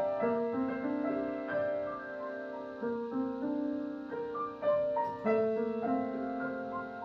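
Solo piano music: an unhurried melody of held notes.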